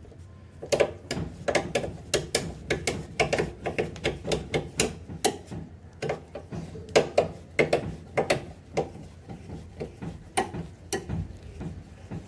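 Scissor jack being cranked up with its hook-ended crank rod to lift the car: a run of uneven metallic clicks and creaks, about two or three a second, as the jack's screw turns.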